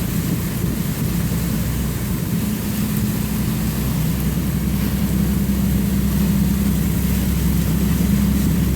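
Car engine and road noise heard from inside the cabin: a steady low drone under an even hiss.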